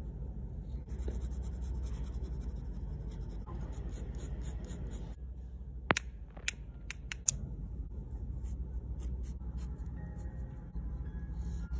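Steel fountain-pen nib scratching in quick strokes across textured watercolour paper, with a few sharp clicks about halfway through.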